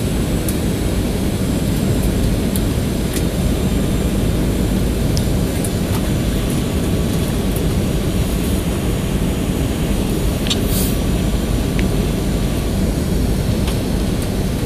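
Steady low rumble of cabin noise inside a Boeing 737-800 on its approach: engine and airflow noise heard through the fuselage, with a few faint clicks.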